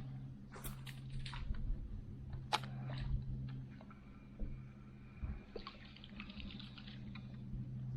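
Water splashing and dripping, with scattered sharp clicks and knocks, over a steady low hum.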